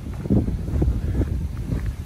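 Wind rumbling on the microphone of a walking camera, with soft footsteps about twice a second.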